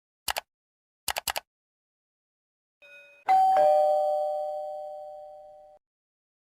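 A few sharp clicks, two and then three, followed by a two-note ding-dong doorbell chime, a higher note then a lower one, ringing out and fading over about two seconds.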